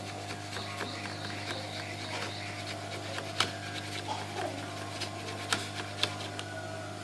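Small clicks and scrapes of a blade trimming excess solder paste from a chip on a reballing stencil, a few sharper ticks in the second half, over a steady low hum.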